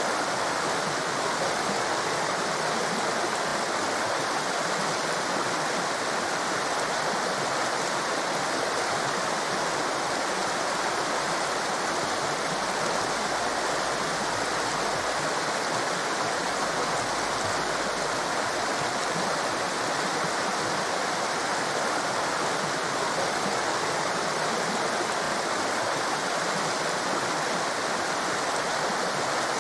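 Torrent of fast-flowing water rushing steadily, an even, unbroken wash of noise.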